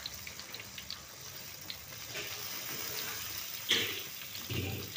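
Bala-bala vegetable fritter batter frying in hot oil: a steady sizzle with small scattered crackles. A brief louder burst of sizzle comes a little past halfway, then a short dull knock.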